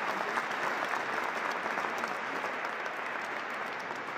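A large congregation applauding, dense clapping that slowly fades toward the end.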